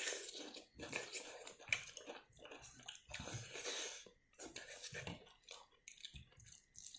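Close-up eating sounds: chewing and biting into food, with crunches and short clicks, and a couple of longer hissing stretches about three seconds in.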